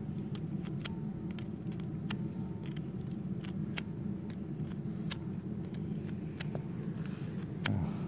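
Light metallic clicks and scrapes, several a second, as a slim terminal cleaning tool is worked in and out of the pin sockets of a snow plow's wiring connector, over a steady low hum.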